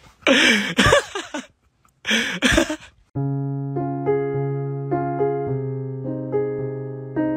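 Two loud vocal bursts from a German shepherd, the first about a second long, the second shorter. About three seconds in, gentle electric piano music starts and carries on.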